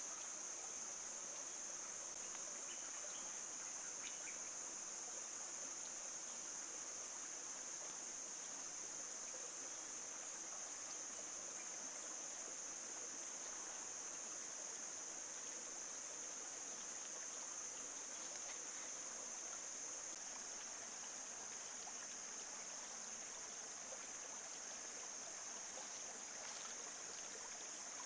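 Insects keeping up a steady, unbroken high-pitched drone, over a faint even background hiss of the surroundings.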